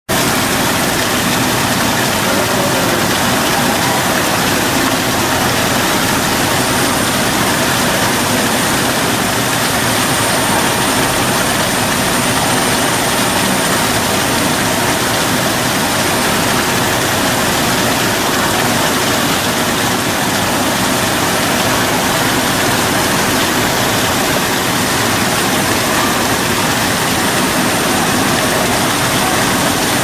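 Steady rushing and splashing of water from a small indoor waterfall.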